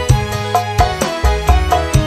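Background music: plucked and struck pitched notes over a steady, repeating drum beat.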